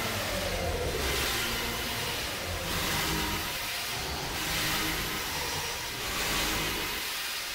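Slowed-down ambient music, a song stretched to a quarter of its speed: a hissing, rumbling wash over sustained low tones that swells and eases every couple of seconds, with a slow falling tone near the start.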